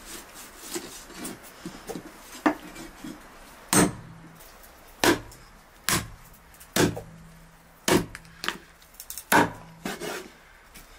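Meat cleaver chopping through lamb meat and a shank bone on a wooden cutting board: light knocks at first, then about seven heavy blows roughly a second apart.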